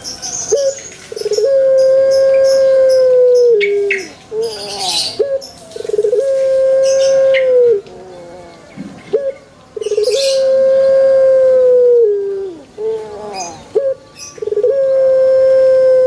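Puter dove (Barbary/ring-necked dove) cooing in the long drawn-out 'pelung' style, four times: each coo opens with a few short notes, then holds one long steady note for about two seconds and drops away at the end. Faint high chirps of other small birds sound between the coos.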